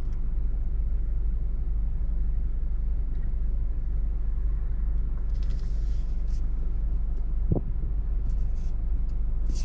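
A steady low rumble with no speech, and a short rising chirp about seven and a half seconds in.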